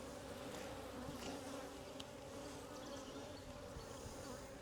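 Honey bees humming steadily around an opened hive, the even, settled buzz of a calm colony, with a few faint clicks.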